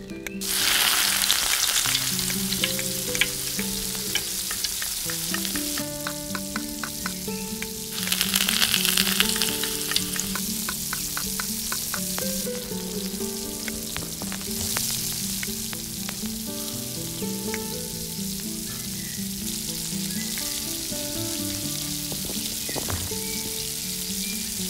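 Chopped onion, ginger and garlic sizzling as they drop into hot oil in a small steel pot. The frying hiss swells again about eight seconds in, with a metal spoon clicking against the pot as the pieces are stirred. Background music plays underneath.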